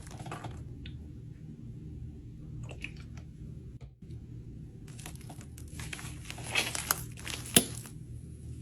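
Slime being squeezed and stretched by hand, giving irregular crackling and popping that thickens and grows loudest a second or so before the end, over a steady low hum.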